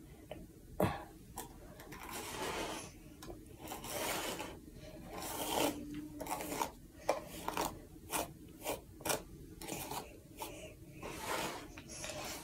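Hairbrush pulled through long hair in repeated strokes, roughly one or two a second, some short and sharp and some drawn out longer.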